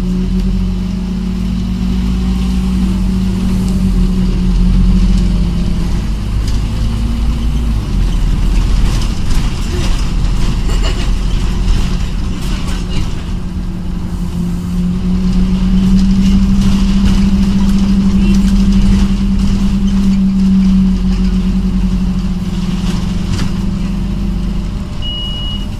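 Scania OmniCity N230UD double-decker bus heard from inside the passenger saloon while it drives: a steady engine drone and road rumble, with the drone louder for the first few seconds and again for several seconds past the middle, and interior rattles throughout. A short high beep sounds just before the end.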